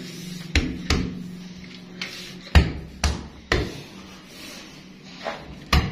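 About six sharp, irregular knocks as hands press and tap a granite countertop slab down onto its silicone bed to level it. The loudest knock is about two and a half seconds in.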